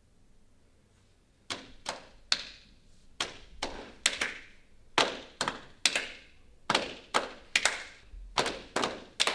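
A run of sharp knocks or strikes, about two a second and loosely grouped in threes, starting about a second and a half in, each with a short ringing tail.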